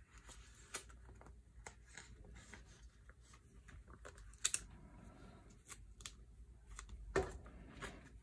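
Faint handling noise of sleeved photocards being slid into a clear plastic 9-pocket binder page: light plastic rustles and small clicks. There is a sharper click about four and a half seconds in and a louder tap with a dull thud a little after seven seconds.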